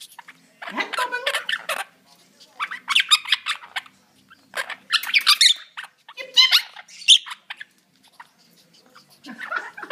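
Quaker parrots (monk parakeets) chattering and squawking in about five short bursts of a second or so, with brief pauses between.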